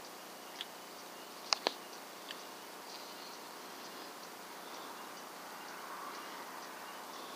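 Faint night-time outdoor ambience: a steady hiss with scattered insect chirps, and a few short sharp clicks, two of them close together about a second and a half in.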